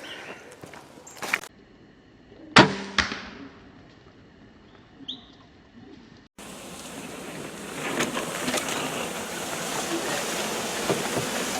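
A single sharp shot with a brief ringing tail about two and a half seconds in, followed some seconds later by a steady hiss.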